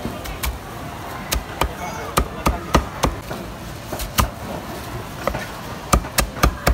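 Meat cleaver chopping braised duck on a round wooden chopping block: about a dozen sharp chops at an uneven pace, some in quick runs of two or three.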